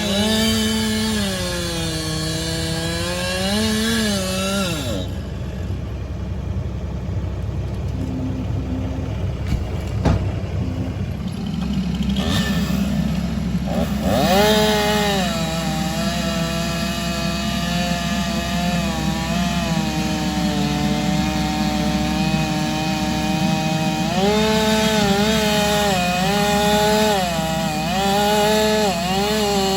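Chainsaw running at high revs and cutting, its pitch dipping and recovering as the chain loads up in the wood. For several seconds in the middle the saw's sound drops away, leaving a lower steady engine rumble, before it comes back and cuts on.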